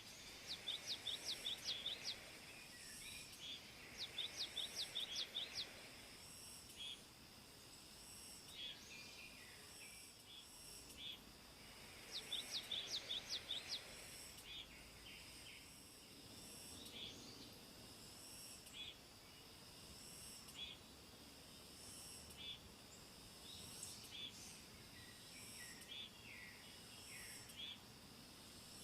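A songbird singing three short bursts of quick repeated high notes, with scattered single chirps between them, over a steady high-pitched insect chorus.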